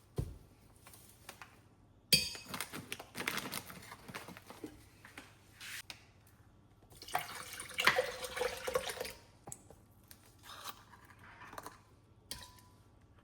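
Kitchen sink sounds: water running from a tap in short spells, with a few clinks of dishes.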